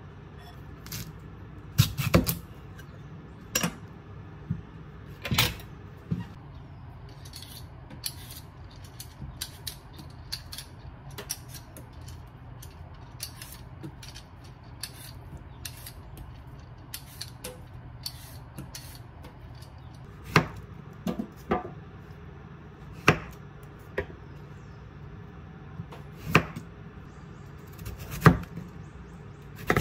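Kitchen work sounds: irregular knocks and clicks of utensils and dishes, a few louder clunks among them, over a steady low hum.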